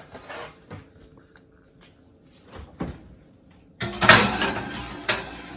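Oven door opened and a cupcake tin pushed in on the rack: a couple of light knocks, then a loud scraping rattle about four seconds in that ends with a knock as the door shuts.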